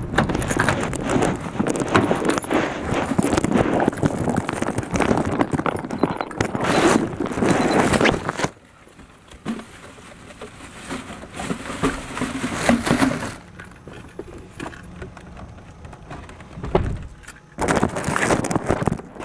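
Plastic shopping bags rustling and crinkling as they are handled, with knocks and clatter of handling. Loud and busy for about the first eight seconds, then much quieter with occasional rustles, picking up again near the end.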